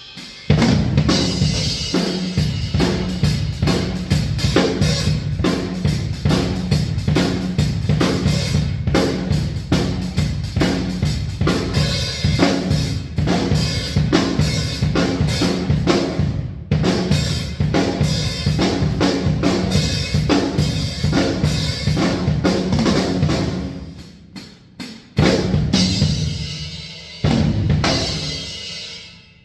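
A DW Santa Monica Collector's Series drum kit played with a steady groove of kick, snare and Sabian AAX Xplosion cymbals. The heads are new Evans heads: EC2 SST on the toms, EC Reverse Dot on the snare and EMAD Onyx on the kick. Near the end the groove breaks off into two big accented hits, each left to ring out and fade.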